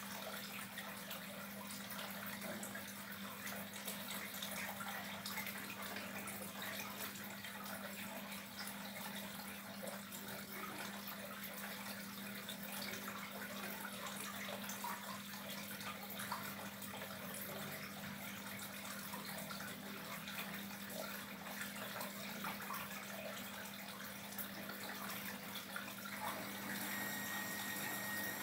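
Water trickling and splashing steadily, with a steady low hum beneath it. Near the end a thin high whine joins in.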